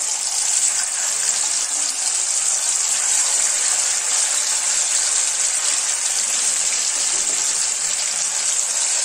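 Marinated anchovies frying in hot oil in a wok, a steady dense sizzle.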